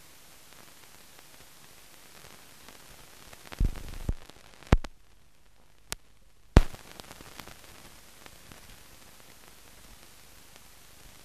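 Steady hiss of a silent film's blank soundtrack. A handful of sharp clicks and pops come in the middle, and the hiss briefly drops out between them.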